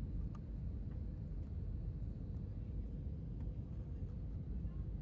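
Steady low rumble of airliner cabin noise from the jet engines and rushing air, with a faint steady hum above it.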